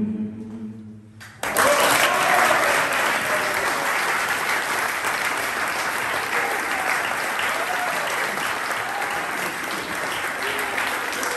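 A held sung note fades away, then about a second and a half in a roomful of people starts applauding, steady clapping with a few voices calling out.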